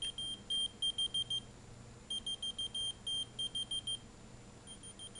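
Whistle-activated key finder keychain beeping after being triggered by a whistle: rapid, high-pitched electronic beeps in three bursts, with short pauses about a second and a half in and near the end.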